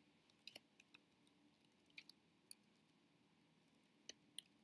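Faint, scattered clicks of a computer keyboard and mouse over near-silent room tone: a few single keystrokes and clicks spread unevenly, a couple of them about four seconds in.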